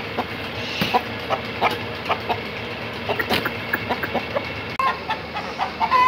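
Aseel chickens clucking, a steady run of short calls one after another.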